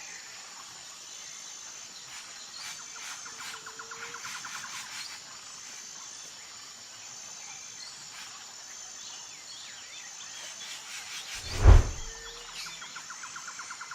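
Insects chirring steadily in a fast, pulsing rhythm, with scattered bird chirps and short trills. Near the end a single short, loud, very deep sound stands out.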